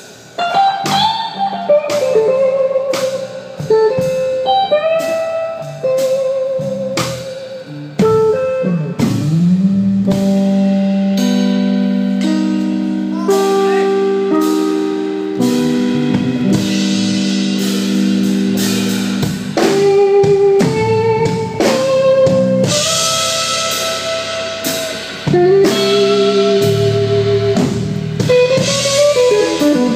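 Electric guitar playing a live blues solo: long, sustained notes with vibrato and string bends, one rising bend about nine seconds in. A drum kit keeps time underneath.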